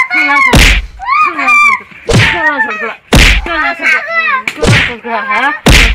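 A child wailing and crying out, broken by about five sharp smacks like slaps or blows spread through.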